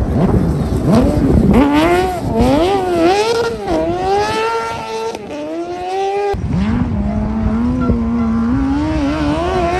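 Off-road racing buggy's engine revving hard, the pitch climbing and dropping again and again through gear changes and lifts as it slides through gravel corners. About six seconds in the sound changes abruptly to a steadier engine note held near one pitch.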